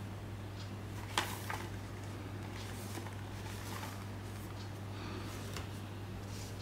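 Gloved hands handling a thin card booklet and printed cards: soft paper rustling and light taps, with one sharp click about a second in. A steady low hum runs underneath.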